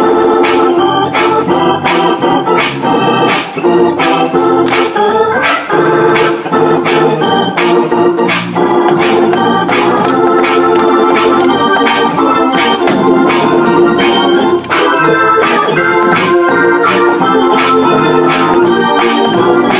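Organ playing a slow gospel hymn tune in sustained chords, with crisp note attacks in a steady beat.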